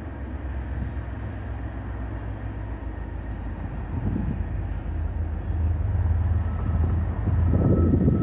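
Diesel locomotives of an arriving Norfolk Southern train: a low, steady engine drone from a distance that grows louder through the second half.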